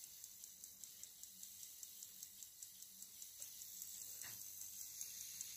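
Kieninger mantel clock movement with a platform escapement ticking rapidly and faintly, about four ticks a second; the owner suspects the clock is magnetized because it runs very fast. One soft knock about four seconds in.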